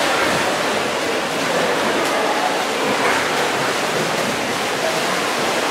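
Steady wash of splashing from several swimmers racing butterfly, echoing in a large indoor pool hall.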